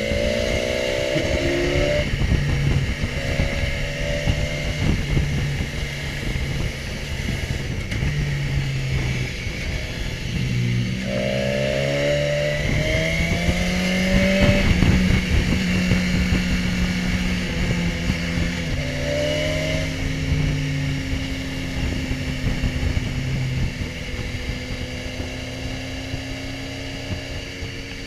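BMW S1000XR's inline-four engine heard from the rider's seat, pulling up in pitch under acceleration a few times, near the start, about eleven seconds in and again near twenty seconds, and holding steadier between. Wind noise rushes over the microphone throughout.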